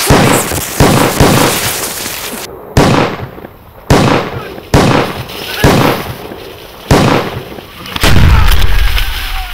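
Shotgun fired again and again: about eight sharp blasts at uneven intervals over nine seconds, each tailing off.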